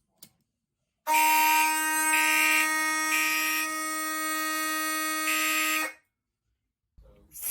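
Fire alarm horns sound together for about five seconds in a panel walk test. One horn holds a steady continuous tone. Over it, a Gentex Commander 3 mechanical horn pulses in its self-coded code-3 temporal pattern: three short blasts, a pause, then a fourth blast starting near the end.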